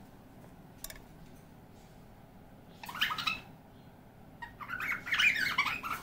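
Cockatiel calls: a short call about three seconds in, then a longer one lasting about a second and a half near the end.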